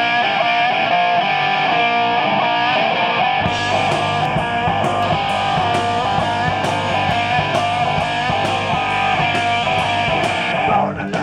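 Live punk rock band: an electric guitar riff plays alone, then drums and bass guitar come in about three and a half seconds in, with steady drum hits about twice a second. The band drops out briefly near the end.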